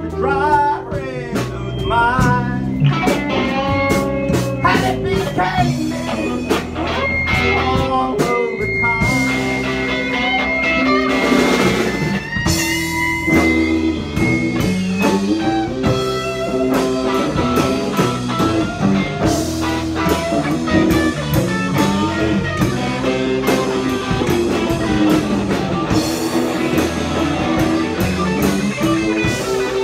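Live punk band playing with electric guitar, bass and drum kit, and a fiddle line over the top; a long high note is held from about seven to twelve seconds in.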